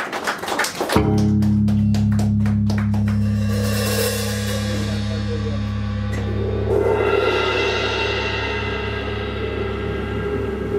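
Ensemble music: a drum kit with cymbals played over a steady low drone that comes in about a second in, with higher held tones joining past the middle.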